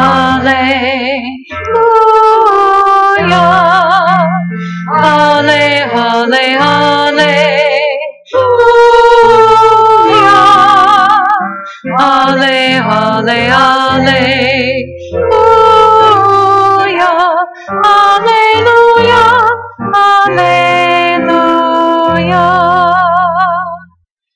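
A woman singing a slow melody with strong vibrato over instrumental accompaniment with sustained low notes, in phrases a few seconds long. The music ends just before speech resumes.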